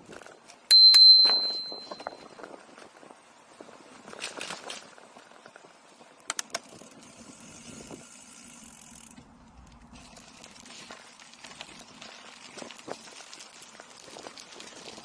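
Bicycle bell rung once, a sharp ding whose clear ring fades over about a second and a half, with two quick clicks later, over the rattle of bicycle tyres rolling on a rough path.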